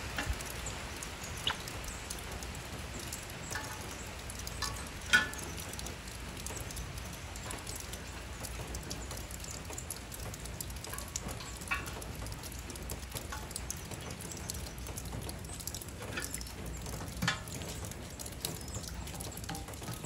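Light rain pattering, a steady fine crackle of scattered drops, with a few sharper clicks now and then as the steel stove and its door are handled.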